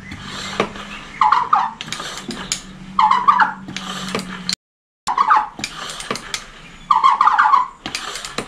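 Garden pump sprayer worked by hand to build pressure, its plunger squeaking in short bursts about every two seconds. The sound cuts out for about half a second in the middle.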